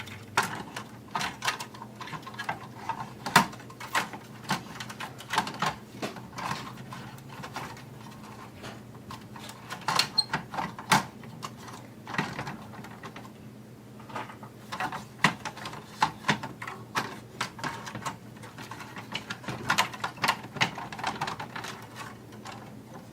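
Irregular clicks and knocks of plastic parts and screws being handled and fitted while a VHS/DVD combo player is reassembled, over a faint steady low hum.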